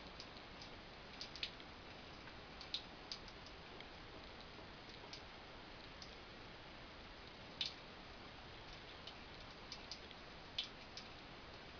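Water dripping and plinking in a bathroom: scattered, uneven sharp ticks over a faint steady hiss, with two louder drops late on.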